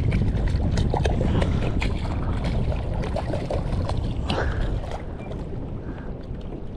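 Wind rumbling on the microphone over water slapping and splashing against an inflatable kayak, with many small scattered clicks and taps.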